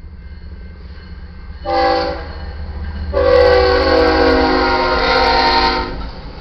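Air horn of a GE ES44C4 diesel locomotive leading a freight train at a grade crossing. It sounds a short blast about two seconds in, then a long blast held almost three seconds as the engine reaches the crossing: the closing short and long of the grade-crossing horn signal. A low locomotive rumble runs underneath.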